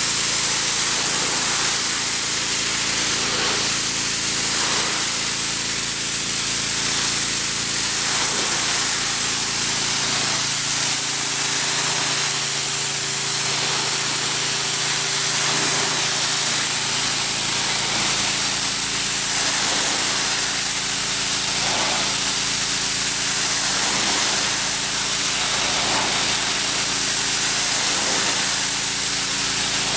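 Pressure washer spraying a wooden deck: a steady hiss of the water jet, with the washer's motor running beneath at an even pitch.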